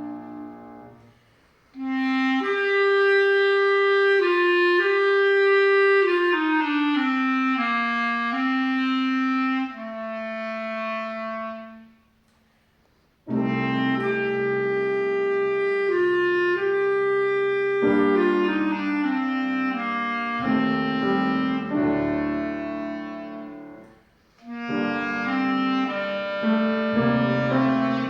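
A wind-instrument solo with piano accompaniment playing a slow melody in long held notes. The phrases are broken by short rests about a second in and around twelve seconds in, with a brief breath near twenty-four seconds.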